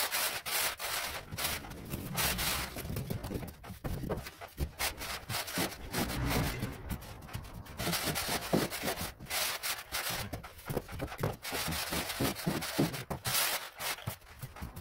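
Gritty scraping strokes of a metal straightedge dragged back and forth across a damp sand-and-cement floor screed to level it. A hand trowel scrapes and pats the mix alongside, in irregular repeated strokes.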